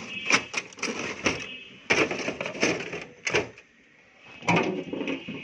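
Knocks and clatter of a tray of fries being put into a freezer: a run of short sharp knocks, a lull about two thirds through, then a last cluster near the end.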